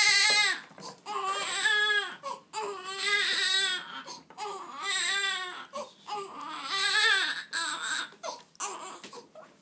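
Newborn baby crying in a series of wails, each about a second long, with short gasping breaths between them; the cries grow weaker and more broken near the end.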